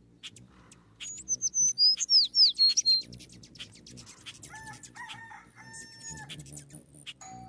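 Birdsong: a quick run of high, falling whistled notes in the first half, the loudest part. Then, around the middle, a rooster crows once in a long held call.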